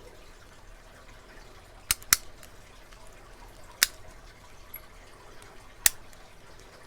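Four sharp clicks as a Master Lock No. 77 long-shackle padlock is handled: two in quick succession about two seconds in, then one near the middle and one near the end.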